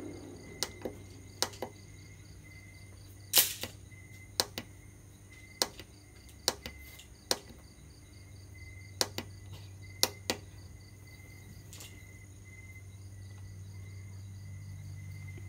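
Sharp plastic clicks, many in quick pairs, as the push buttons on a solar inverter's control panel are pressed and released, over a dozen times in the first three quarters. Under them runs a steady low hum with a faint high pulsing chirp.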